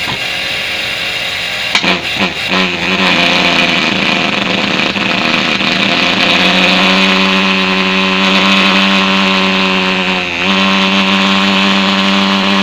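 Thermal fogging machine starting up: a hiss, a few sputters about two seconds in, then its pulse-jet engine catches and runs with a steady drone. The drone grows stronger partway through and dips briefly near the end. The machine has just been repaired with a new spark plug and new pump carbon brushes.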